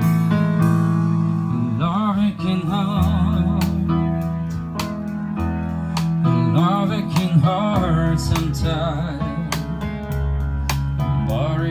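Live band playing a slow pop ballad: sustained chords over bass notes, with a singer's voice carrying the melody with vibrato from about two seconds in, and light regular percussion ticks.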